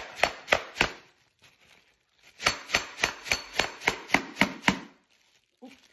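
A hand-held coconut struck again and again with a cloth-wrapped object to crack its shell: sharp knocks about four a second, a short run of four, then after a pause a longer run of about nine.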